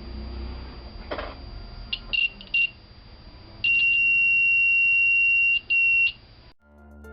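Piezo buzzer of a bimetal fire-alarm kit sounding a high steady tone, first in a few short stuttering beeps, then held for about two seconds, then a last short beep: the heated bimetal strip has bent against the contact and closed the alarm circuit. A single click comes just before the beeping.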